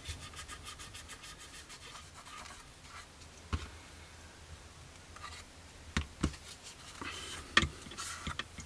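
Cotton bud rubbing and scratching over the painted plastic of a scale model aircraft, wiping off excess dark weathering wash, with a few light knocks of the plastic kit being handled, the sharpest near the end.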